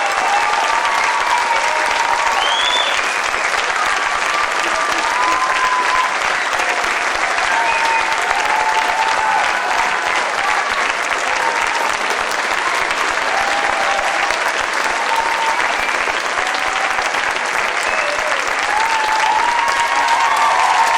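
Audience applauding with sustained, dense clapping, and voices calling out over it here and there.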